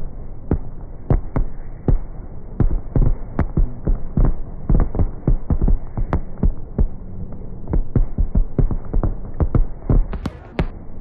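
Aerial fireworks bursting in a rapid, irregular barrage of low booms, several a second, over a continuous rumble.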